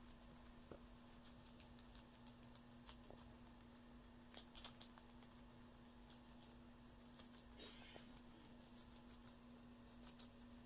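Guinea pigs chewing green leaf lettuce: faint, crisp irregular clicks, some in quick little runs, over a steady low hum.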